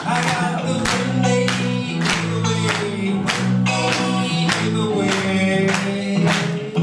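Acoustic guitars strumming a blues song, about two strums a second over steady low notes, with a wavering melody line carried above them.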